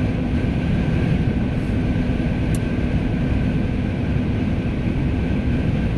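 Steady road and engine noise inside a pickup truck's cab while driving, with a low steady hum running under it.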